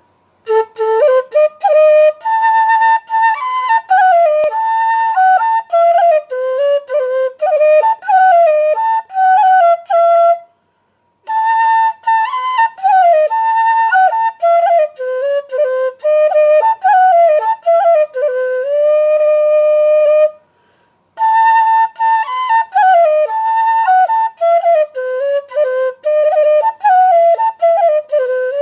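Solo flute playing a melody of short notes with slides between them, in three phrases broken by brief pauses about ten and twenty seconds in.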